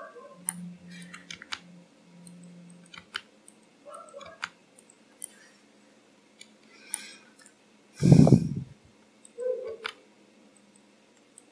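Computer mouse clicks and keyboard key presses, short and irregular, with one loud low thump about eight seconds in.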